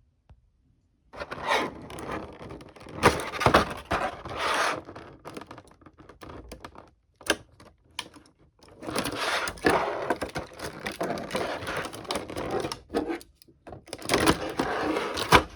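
A tape tab being cut and plastic toy packaging being opened and handled. The sound is irregular scraping and crinkling with sharp clicks and snaps, starting about a second in.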